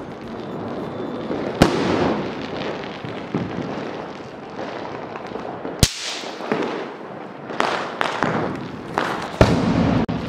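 Small paper-wrapped throw-down pop crackers (Chinese 'lahsun') bursting on concrete: several sharp cracks spread unevenly, two of them close together near the end, over a steady background of other fireworks going off.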